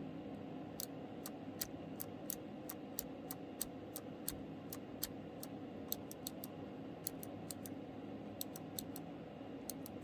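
Keychron K3 low-profile optical blue (clicky) switches clicking as two keycaps are pressed over and over, about three sharp, faint clicks a second with short gaps, over a low steady hum.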